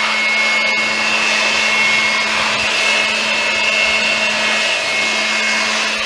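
Handheld electric air blower (Perfect brand) running steadily with a high motor whine, blasting air to blow dry dust off a window air conditioner's compressor and coils.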